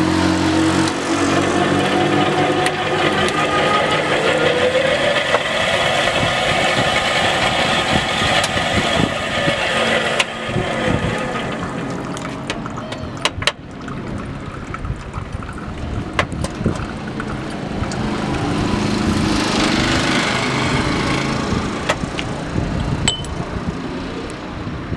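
Electric sugar cane juicer's motor running with a steady hum. It drops in level about ten seconds in, with a few sharp clicks a little later.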